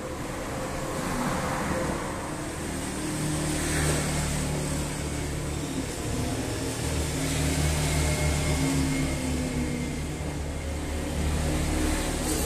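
An engine running steadily, a low hum whose pitch shifts slightly as it goes.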